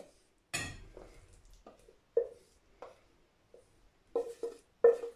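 Enamel pot and wooden spoon knocking against a dish as stewed fruit is tipped and scraped out: a string of separate knocks and clinks, some with a short ring, the loudest near the end.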